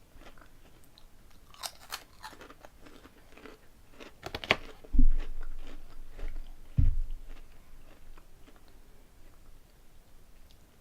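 Crisp potato snack chips crunched and chewed close to the microphone, with clusters of crackly bites about two seconds in and again around four seconds in. Two dull, low thumps come a little after the middle and are the loudest sounds.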